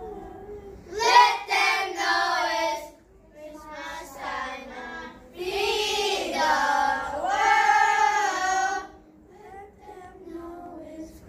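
A group of children singing together, getting louder and softer on cue: loud for about two seconds from a second in, soft, loud again from about halfway for three or four seconds, then soft near the end.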